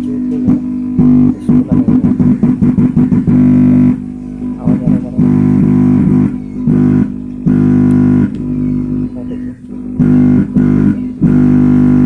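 Music with plucked guitar and a heavy bass line playing loudly through the speakers of a repaired Intex home theatre, showing that it gives sound again.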